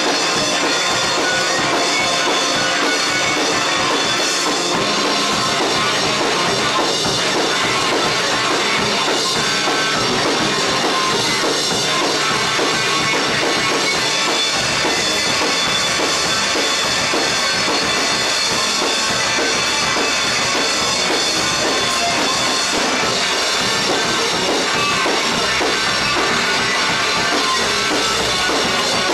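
Rock band playing live, an instrumental passage with a drum kit over a dense, loud, continuous wall of sound. The low end grows heavier about halfway through.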